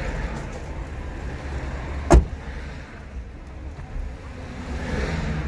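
Low, steady engine and road rumble heard inside a moving car, with a single sharp knock about two seconds in.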